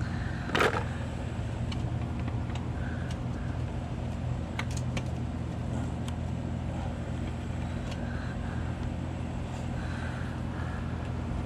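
A steady low mechanical hum, with a brief rustle just after the start and a few faint clicks later on.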